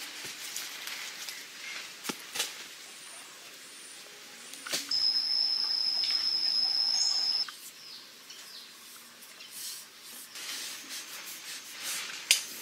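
Quiet outdoor background with a few sharp taps and light scraping as hands work wet mud and set a green bamboo pipe in place. About five seconds in, a loud, steady, high-pitched whistling call holds for about two and a half seconds, then cuts off suddenly.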